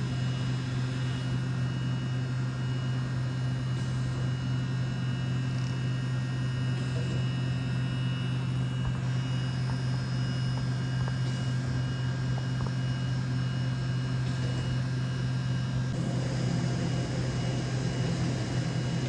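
DVF 5000 five-axis CNC machining centre running, a steady hum with thin whining tones above it; the sound grows denser and noisier about three seconds before the end.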